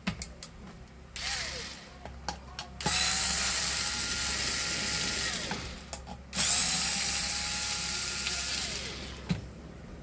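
Electric screwdriver backing out the screws that hold a hair dryer's heating element: a brief spin about a second in, then two runs of about three seconds each, the motor winding down in pitch at the end of each.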